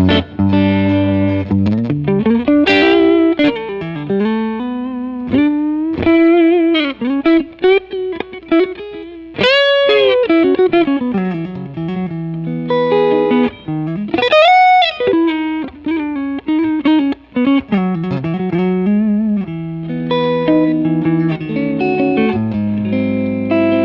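Humbucker-loaded Warmoth '72 Telecaster Deluxe-style electric guitar played clean through a miked amp: single-note melodic lines and chords, with bent and vibratoed notes about ten and fourteen seconds in.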